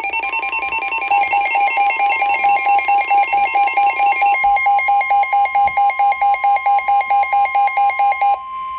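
Emergency alert tones for a tornado warning: a rapidly pulsing two-tone alarm beeping about five times a second, over a steady single high tone that comes in just after the start. The beeping stops near the end while the steady tone holds a moment longer.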